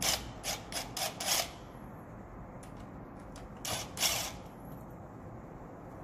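Short metallic clicks and rattles from a drill driver working the screws out of a door lock's metal faceplate: a quick run of about five clicks in the first second and a half, then two more about four seconds in, the second louder.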